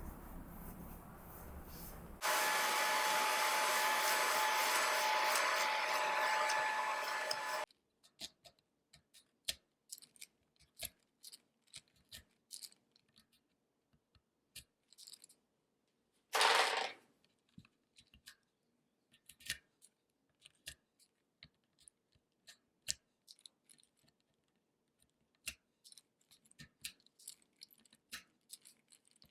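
A small electric blower runs for about five seconds, a rush of air over a steady motor whine, then cuts off. Scattered light clicks and taps of small plastic keyboard parts follow, with one more short blast of air about halfway through.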